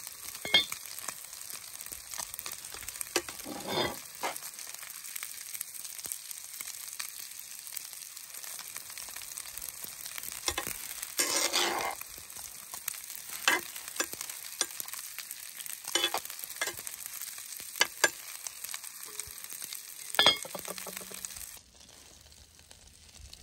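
Broccoli and carrots sizzling in a cast-iron pot, with a metal slotted spoon scraping and clinking against the pot as they are stirred. The sizzling cuts off near the end.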